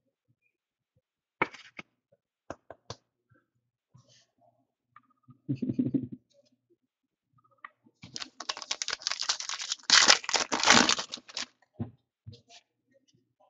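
A trading card pack's foil wrapper being torn open and crinkled, a dense crackling rip that lasts about three and a half seconds and is loudest near the end. Before it come light clicks and a soft thump as cards and plastic holders are handled.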